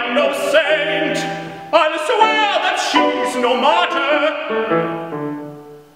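A male classical singer and a grand piano performing the close of an art song: a last sung phrase with vibrato over the piano accompaniment, then sustained piano chords that die away near the end.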